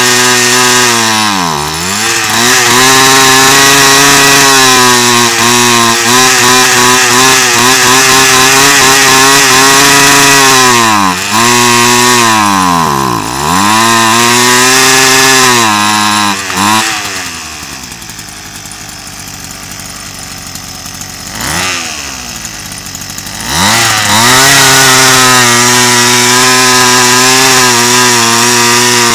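Small two-stroke brush cutter engine, fitted with a large cylindrical trial muffler, running at high revs. The revs dip and recover a few times, drop to idle for about six seconds past the middle with one short blip, then climb back to full revs.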